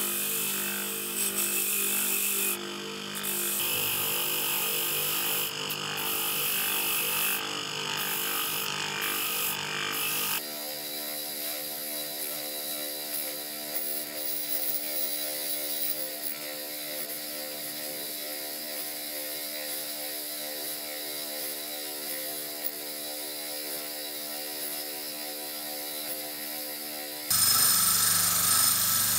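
Motor-driven wire brush wheel spinning with a steady hum while small rusty steel engine parts are held against it, the wires scrubbing off rust with a hiss. The sound changes suddenly about ten seconds in and again near the end.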